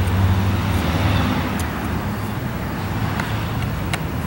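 Steady low outdoor rumble, like distant traffic, with a few faint clicks of small chainsaw parts being handled.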